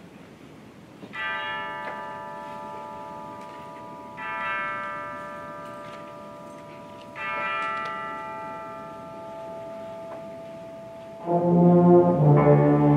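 Wind ensemble playing: three soft held chords, each entering about three seconds after the last, then the full band comes in much louder about eleven seconds in.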